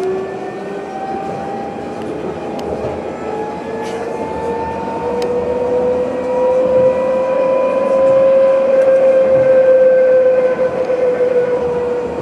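Electric traction motors of an Alstom Citadis tram whining as it accelerates away from a stop, heard from inside the car. The pitch rises steadily for about eight seconds, then levels off and dips slightly, over steady rolling noise with a few light clicks.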